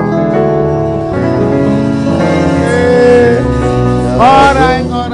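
Gospel praise music: a man singing into a microphone over instrumental accompaniment, with held notes and a wavering sung phrase about four seconds in.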